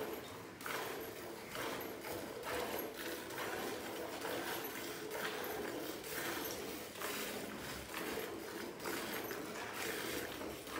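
Cow being milked by hand: streams of milk squirting into a pail that already holds milk, in a steady rhythm of about two squirts a second.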